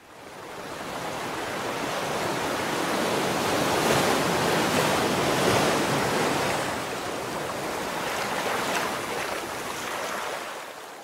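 A rushing, surf-like noise, a wave sound effect for the outro logo, swelling up over the first few seconds and fading away near the end.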